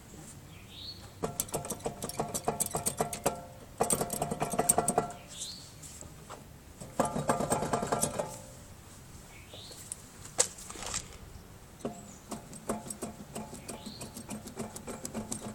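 Worn wheel bearing on a 1994 Honda Accord wagon making a rapid, rattling grinding growl that comes and goes in four bursts of one to three seconds each.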